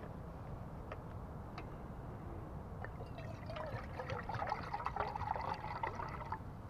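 Water pouring from a plastic canteen into a metal canteen cup. It starts about halfway through, runs for about three and a half seconds with the pitch creeping up as the cup fills, then stops.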